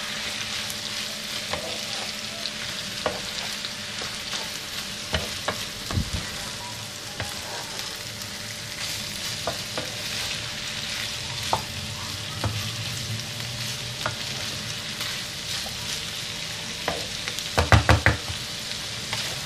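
Julienned beef, onions and peppers sizzling steadily in a nonstick frying pan as they are stirred with a wooden spatula, with scattered taps and scrapes of the spatula on the pan and a few louder knocks near the end.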